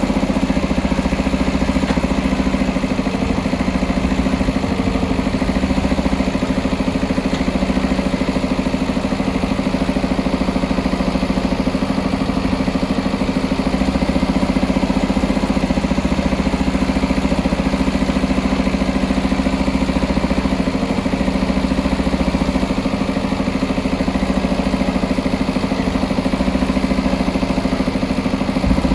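JCB backhoe loader's diesel engine running at a steady speed, an even, unchanging drone.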